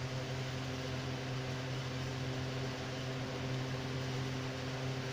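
Steady low machine hum with a faint hiss, unchanging throughout; no bird calls.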